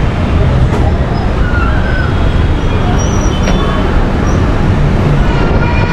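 Steady street traffic noise, a dense low rumble with faint voices mixed in.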